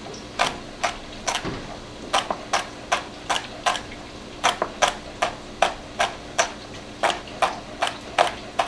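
A large kitchen knife chopping celery on a cutting board: a steady run of crisp chops, about two to three a second.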